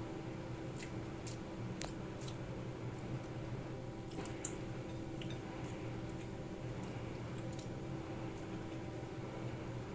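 Close-up eating sounds of a person eating rice, sponge gourd and misua noodles by hand: scattered short, sharp wet mouth clicks and chewing over a steady low hum.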